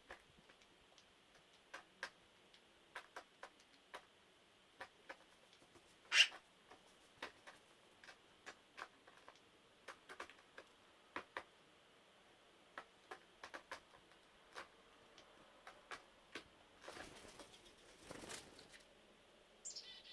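Birds pecking at dry dog food kibble: faint, irregular sharp ticks, one louder tick about six seconds in. A brief rustle, likely wings, comes near the end, followed by a short, falling bird call.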